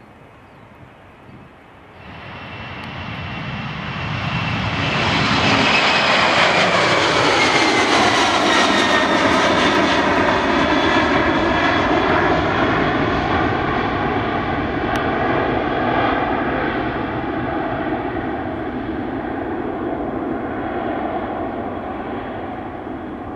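Boeing 767-300ER jet engines at takeoff thrust. The sound rises suddenly about two seconds in and swells to a loud peak, with a whine falling in pitch as the airliner passes, then fades slowly as it climbs away.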